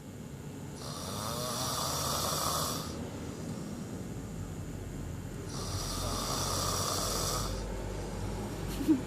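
A sleeping person snoring with the mouth open: two long snores, each about two seconds, one starting about a second in and the next about four and a half seconds later.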